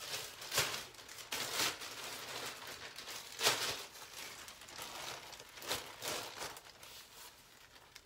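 A clear plastic bag crinkling and rustling in irregular bursts as it is handled and pulled over a mixing bowl. The loudest burst comes about halfway through.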